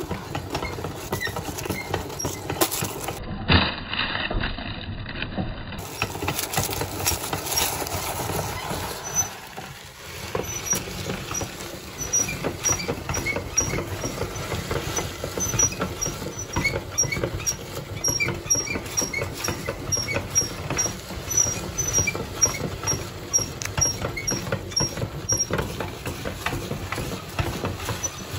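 Hand-cranked cast-iron meat grinder crushing pressed popcorn cakes: a steady, dense crunching and crackling as the crank turns. Through the middle there is a run of short high chirps, a few each second.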